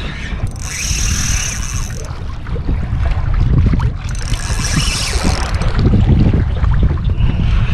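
Wind buffeting the microphone over open water, with a spinning reel cranked in three bursts of whirring as a hooked fish is fought on a bent rod.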